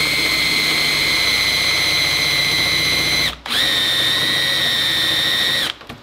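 Makita 18V cordless drill driving an old, blunt 22 mm hole saw through a panel. It gives a steady, high-pitched motor whine, which stops briefly about three seconds in, starts again slightly lower in pitch, and cuts off shortly before the end.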